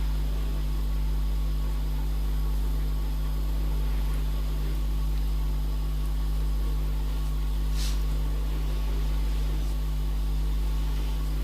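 Steady low electrical-sounding hum over a faint hiss, constant throughout, with one brief faint scratch about eight seconds in.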